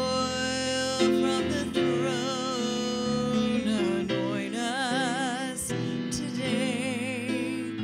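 Gospel song: a singer holding long wavering notes over piano accompaniment.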